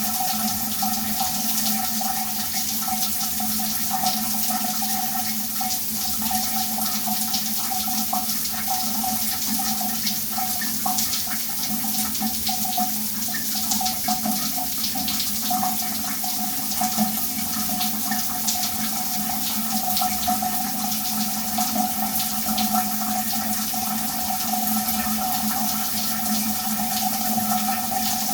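Shower water running steadily: a constant hiss of spray with fine droplet patter, over a steady low hum and a higher steady tone.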